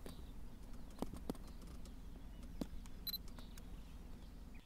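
A few shutter clicks from a small compact camera, with a short high beep a little after three seconds in, over a low steady rumble.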